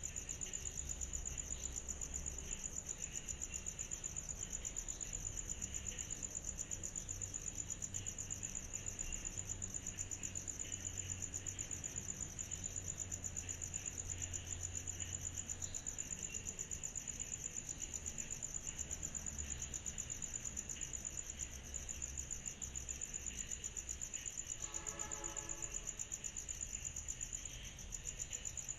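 Chorus of night insects: a steady, high-pitched trill pulsing rapidly, with a faint low hum underneath. Near the end comes a brief pitched call of a second or two, well below the trill.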